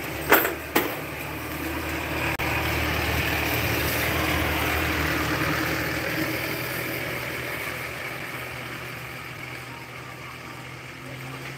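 A van driving past on the wet road: engine and tyre hiss swell to a peak about four seconds in, then fade away, over a steady low engine hum. Two sharp knocks sound about half a second in.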